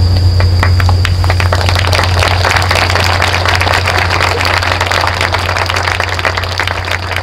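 Audience applauding, the clapping building up about a second in and thinning toward the end, over a steady low electrical hum.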